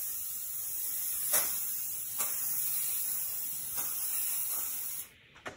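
Handheld aerosol paint sprayer hissing steadily as it sprays a light coat of paint onto a plastic console. It stops about five seconds in, then gives one short puff just before the end.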